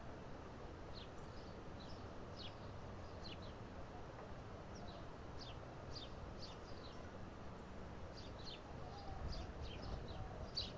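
Small birds chirping: many short, high, downward-slurred chips at irregular intervals, over a steady low rumble. A few low bumps come near the end.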